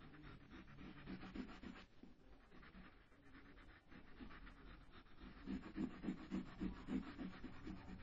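Yellow colour rubbed quickly back and forth over paper while shading in a drawing: a quiet, rhythmic scratchy rubbing, the strokes getting louder and more regular, about three a second, from about five seconds in.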